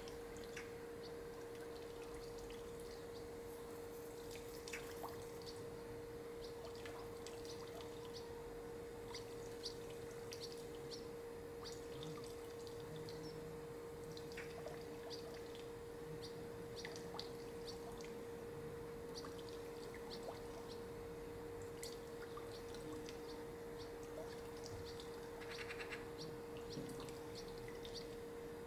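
Faint background ambience: a steady low hum with scattered short high ticks and chirps, and a brief rapid buzzy chirp near the end.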